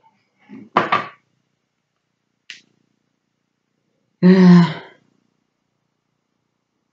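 A sharp click about a second in, then a woman clearing her throat with a short, loud voiced sound between four and five seconds.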